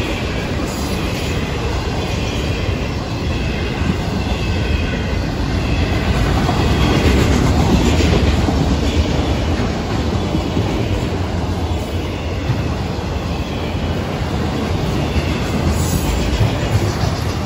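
Freight train's autorack cars rolling past: a loud, steady rumble and clatter of steel wheels on the rails, with a faint high wheel squeal in the first few seconds.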